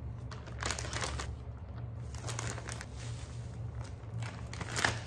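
Plastic zip-top bags and cling film crinkling and rustling in several short bursts while raw chops are moved into the bags with tongs, over a steady low hum.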